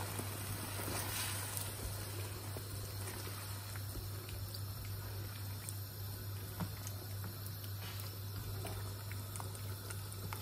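Sauce thinned with stock simmering in a wok, a steady bubbling hiss over a low hum, with a few faint knocks of the spatula.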